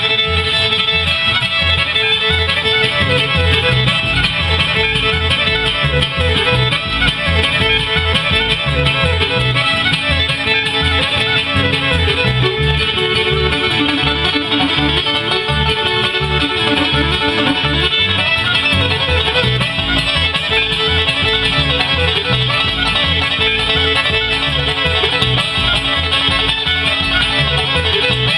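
Live bluegrass band playing a tune: a fiddle bows a sliding melody over strummed acoustic guitar, with an even beat underneath.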